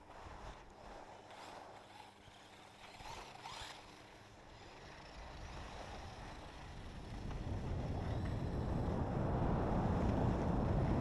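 Wind rushing over an action camera's microphone as a skier picks up speed, mixed with the hiss of skis sliding on wet snow; it grows steadily louder over the second half.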